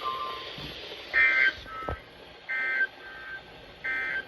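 Emergency Alert System end-of-message signal: three short bursts of SAME digital data tones, a harsh two-tone warble repeated about a second apart, marking the end of the alert.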